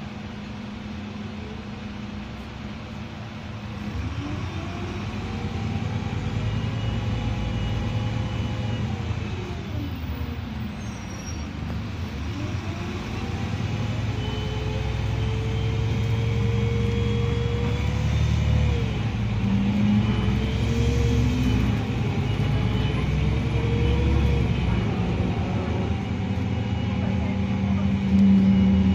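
Cabin sound of a Karosa B 961E articulated city bus pulling away and accelerating: the diesel engine and drivetrain note climbs, then drops back at each automatic upshift, several times over, with road noise rising as it picks up speed.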